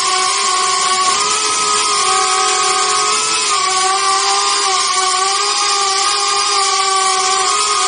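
Brushless motors and ducted propellers of a small FPV quadcopter whining steadily in flight, the pitch wavering slightly as the throttle changes, picked up close by a camera mounted on the drone.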